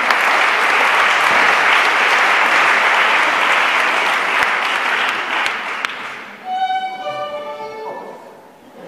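Audience applauding for about six seconds, fading away; then a short phrase of music, a few held notes stepping down in pitch, from a fiddle-like instrument.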